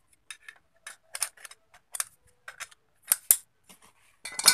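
Two-jaw bearing puller being worked by hand on a water-pump motor's armature shaft to draw off a worn ball bearing: irregular sharp metal clicks and clinks, the loudest a little after three seconds and just before the end.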